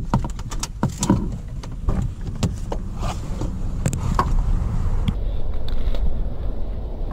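Car keys jangling with a string of clicks and knocks inside a Honda Civic, then the driver's door latch releasing and the door being pushed open about five seconds in, letting in steady outside noise.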